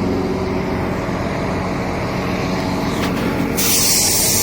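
The PTO-driven hydraulic pump and truck engine of an Atlas 330.1 crane running with a steady hum. The pump is running quieter now that compressed air is fed to the hydraulic tank so it no longer sucks in air. Near the end there is a loud burst of hissing air.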